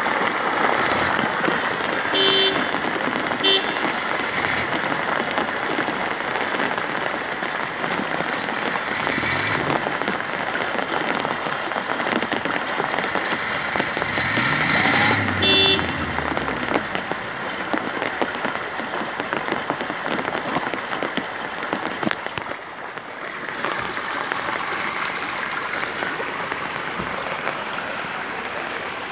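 Heavy rain falling steadily on an umbrella overhead and on a flooded road. Short vehicle horn toots sound about two seconds in, again a second later, and once more midway as a vehicle passes.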